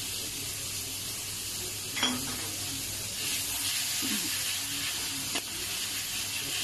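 Blended onion and garlic with tomato sauce sizzling in hot oil in a metal wok while a spatula stirs and scrapes the pan. A sharp clink comes about two seconds in, and the sizzle grows louder a little past three seconds, with a smaller click near the end.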